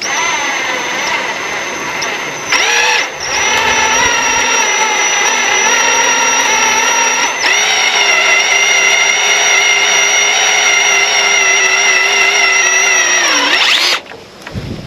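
Electric drill motor running steadily, pulling stiff aluminum wire through a wire stripper's cutter. Its whine dips briefly twice under load, then falls in pitch and stops near the end.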